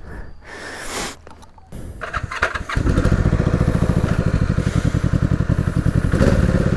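1973 Honda CB450 parallel-twin engine being started: it turns over and catches about three seconds in, then idles steadily with an even, rapid beat.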